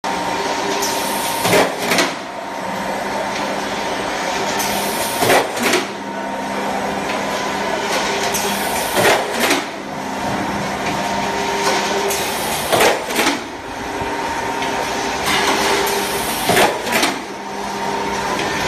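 Automatic seam welding machine running: a steady mechanical whir with a hum and a constant tone, and a sharp double knock repeating about every four seconds as the machine cycles.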